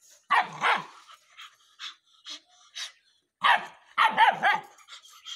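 Rottweilers barking: two loud barks about half a second in, then short, fainter high yaps, then a quick run of loud barks near the end.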